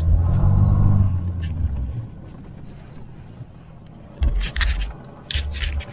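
Off-road Jeep engine running under load. It climbs in revs for the first two seconds, then drops to a quieter low rumble. Short noisy bursts and low thumps come near the end.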